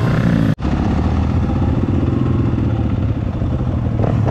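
Yamaha dirt bike engine running steadily, close to the microphone, with a brief cut in the sound about half a second in.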